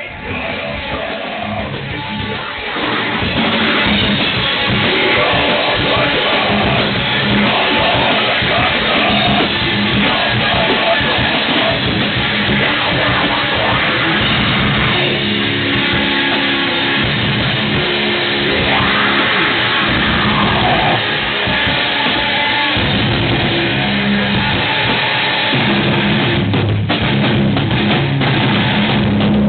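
Rock band playing loud, with electric guitar and a full drum kit.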